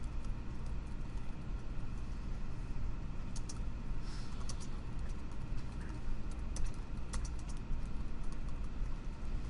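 Computer keyboard typing: irregular runs of keystrokes, busiest in the middle stretch, over a steady low hum.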